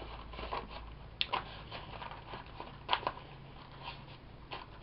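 Kale chips being chewed: a scatter of short, crisp crunches, the sharpest about a second in and again near three seconds.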